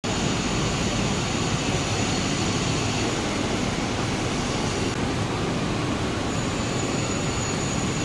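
Glass tempering furnace machinery running with a steady, even rushing noise.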